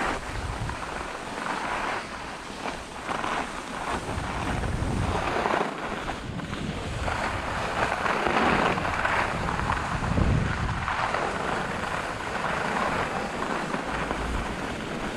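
Skis scraping over groomed, packed snow with wind rushing over the microphone; the hiss swells and fades with each turn, over a low buffeting rumble.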